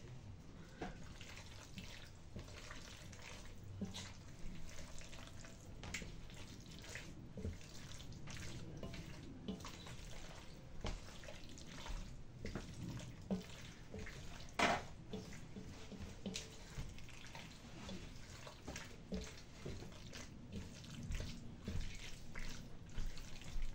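Wooden spoon stirring a thick mix of beans, lardons and tomato sauce in an enamelled cast-iron casserole: soft wet squelching with irregular light knocks of the spoon against the pot, one louder knock about two-thirds of the way through.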